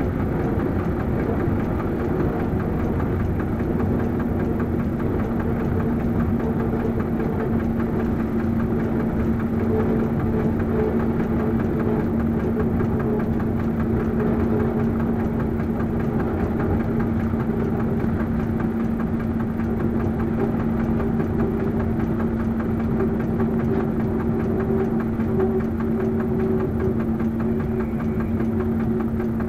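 Diesel engine of a BB 67400-class locomotive running steadily under way, heard from the driving cab. A steady hum comes in a few seconds in.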